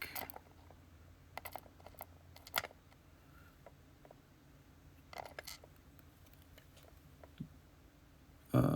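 Scattered light clicks and taps, a few at a time, from small lock pins and padlock parts being handled.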